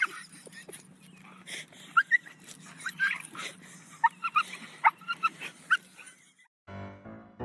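A dog whimpering and yipping in a string of short, high-pitched squeaks. Piano music starts near the end.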